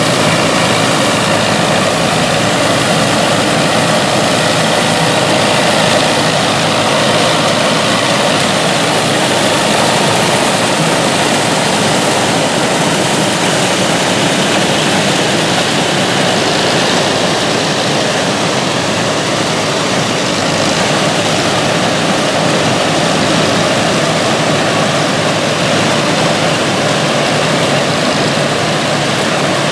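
Vintage farm tractors pulling corn pickers through standing corn: engines running steadily under load with the pickers' machinery working as the elevators carry ears into the wagons.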